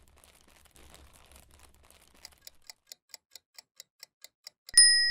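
Intro sound effect: a ticking like a clock, about five ticks a second, then near the end a sudden loud bell ding that rings on and fades slowly.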